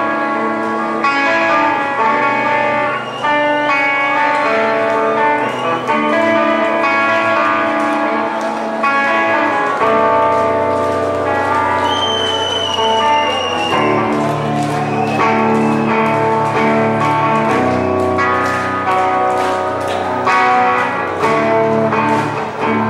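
Live guitar music: sustained chords changing every second or two, with a high note that slides down slightly about halfway through.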